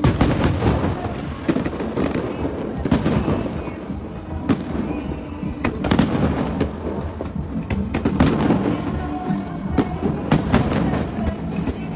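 Aerial fireworks shells bursting one after another, a dense run of sharp bangs over a continuous rumble.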